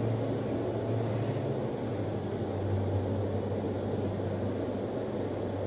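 Freight train's covered hopper cars rolling past: a steady rumble of steel wheels on the rails, with a low steady hum beneath.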